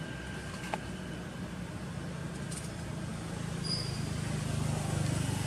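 Low, steady engine hum that swells somewhat in the second half, with a single faint click about a second in.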